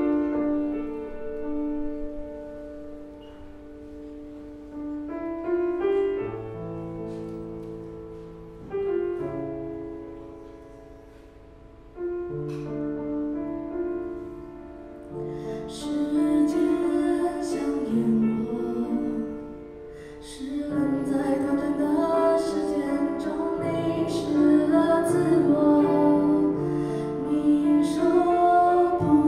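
Grand piano playing a slow ballad introduction alone, then a woman's voice begins singing over the piano chords about halfway through.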